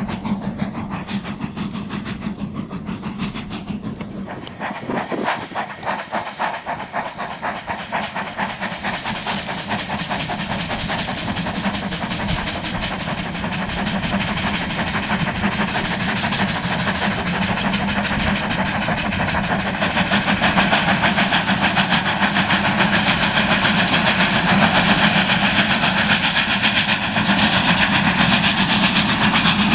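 Two narrow-gauge steam locomotives, Lyn and Lyd, hauling a train of coaches past, with steam exhaust and hiss over the quick clickety-clack of the coaches' wheels on the rail joints. The sound grows louder through the middle as the train draws near, then stays loud.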